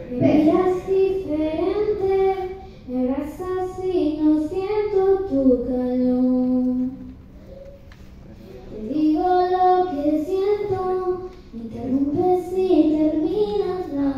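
A young girl singing into a microphone: sung phrases in a high voice, with a pause of about two seconds midway.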